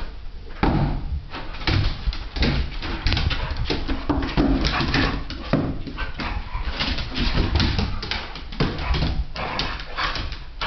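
Two dogs playing rough, one a young American Pit Bull Terrier: dog vocalisations mixed with scuffling knocks, in quick irregular bursts.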